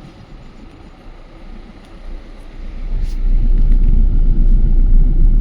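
Low rumble of a moving vehicle on the road, swelling much louder about three seconds in and staying loud.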